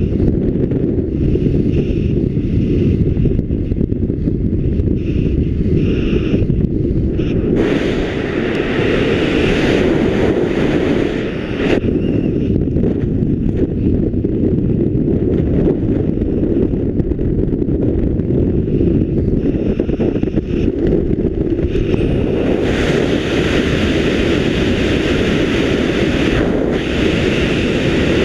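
Wind rushing over the camera microphone under an open parachute: a steady low buffeting, with a brighter hiss coming in about eight seconds in and again for the last several seconds.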